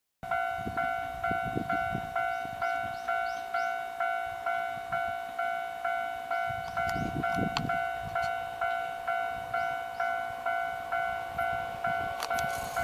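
Railway level-crossing warning bell ringing steadily, about two dings a second: the crossing signal for an approaching train. Noise from the arriving train begins to rise near the end.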